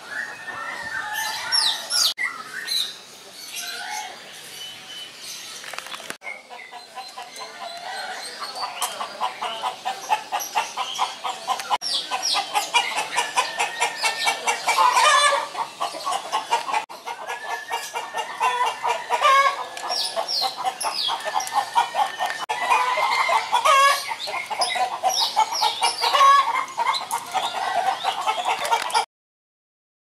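Many caged birds calling together: short high chirps over a dense, rapid chatter of calls. The sound breaks off at a few edits and cuts off just before the end.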